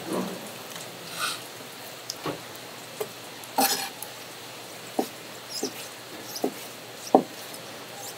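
Wet handling sounds at a seafood stall: irregular taps and knocks, with short splashy squelches about a second in and again near four seconds.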